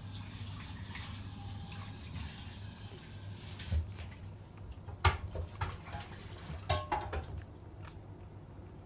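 Newborn Shiba Inu puppies suckling at their mother's teats, with soft wet smacking and clicking. The clicks come irregularly through the second half, over a steady hiss that fades after about three seconds.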